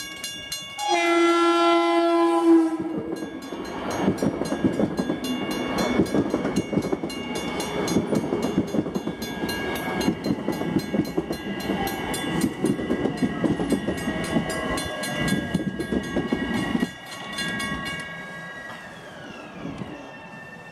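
Long Island Rail Road M7 electric train sounding one horn blast about a second in, then passing close by with wheels clattering over the rail joints, while the grade-crossing warning bell dings rapidly. After about 17 s the passing noise drops away and a falling whine is heard.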